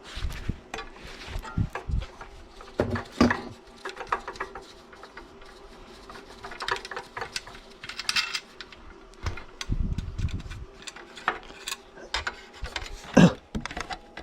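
Irregular clicks, knocks and clatter of tools and metal parts being handled during restoration work on an air compressor, with a sharper knock near the end.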